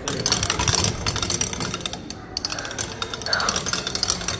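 Hand crank of a pressed-penny souvenir machine being turned, its gears and ratchet clicking rapidly, with a brief pause about halfway through.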